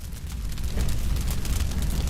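A sound effect of a deep rumble with dense crackling, swelling up over the first second and then holding steady.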